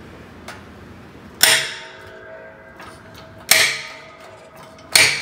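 A rust-seized propeller mounting bolt giving way under a hydraulic shop press: three sharp metallic bangs, about two seconds apart and the last near the end. Each bang rings briefly as the bolt jumps free in its sleeve.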